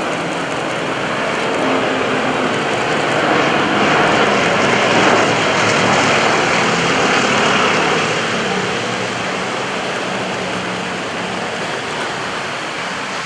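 A formation of Yakovlev Yak-52 and Nanchang CJ-6 aerobatic trainers droning overhead, their nine-cylinder radial engines and propellers running together. The sound swells about four seconds in, is loudest around five to seven seconds, and then fades slowly.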